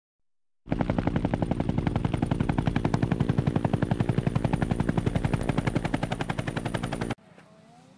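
Helicopter rotor chopping: rapid, even blade slaps, about a dozen a second, over a steady low drone. It starts after a brief silence and cuts off abruptly about seven seconds in.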